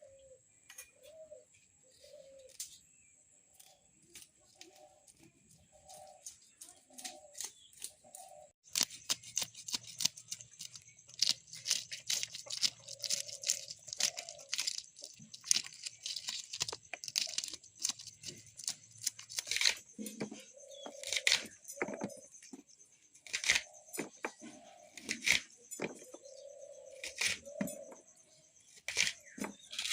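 Maan kochu (giant taro) stems being cut and torn apart, a busy run of sharp snaps and crackles that thickens from about nine seconds in. Pigeons coo again and again underneath.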